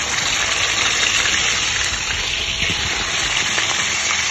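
Raw marinated chicken pieces frying in hot oil in a pan, a loud steady sizzle as they are shallow-fried to brown lightly.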